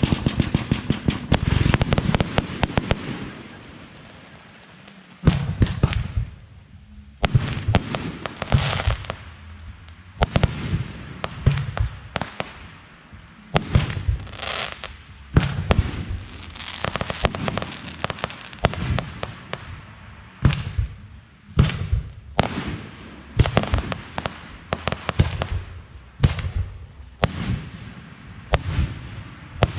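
Fireworks going off. A rapid string of bangs fills the first few seconds. After a short lull, single loud bursts follow about once a second, each trailing off.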